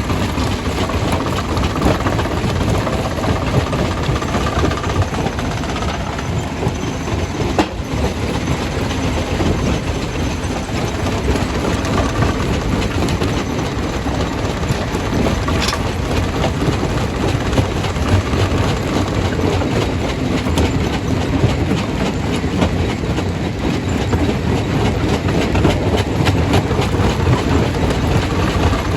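Stone crusher running under load: rock cracking and knocking continuously as it is crushed, over the steady low rumble of the machine's engine.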